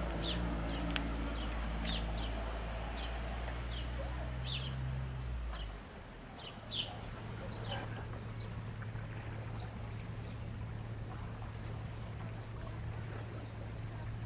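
Small birds chirping in many short, quick notes over a low steady hum. The hum changes about six seconds in, to a slightly higher one.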